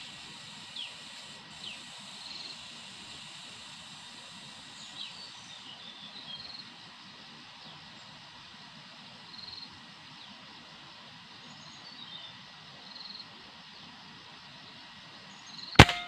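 Small birds in the trees give short chirps and whistles, then near the end a single sharp shot from a scoped gun rings out, aimed at a bird in the branches.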